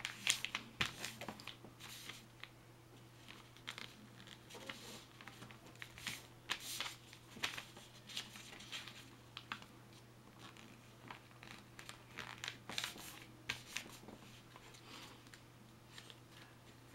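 A sheet of squared paper being folded and creased by hand into a paper airplane: irregular crinkling and rustling as the folds are pressed down.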